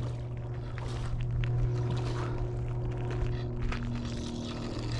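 A baitcasting reel being cranked against a hooked striped bass, with many faint, irregular clicks. A steady low hum runs underneath throughout.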